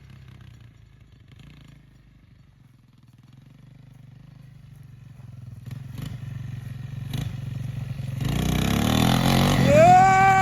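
A 1986 Yamaha YTM225 three-wheeler's single-cylinder four-stroke engine running, faint at first and growing steadily louder as it comes closer. A long, held high-pitched tone starts near the end.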